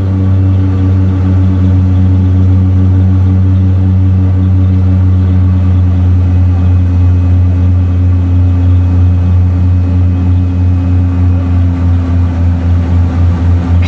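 Twin Otter seaplane's turboprop engines and propellers droning steadily, heard inside the cabin during a low approach over the water. Near the end the drone starts to throb in a regular beat of a few pulses a second.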